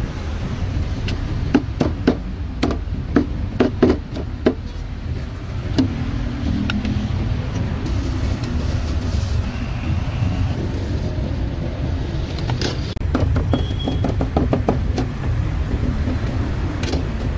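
Steady low rumble of street traffic, with scattered sharp clicks and knocks in two clusters, early and again in the second half.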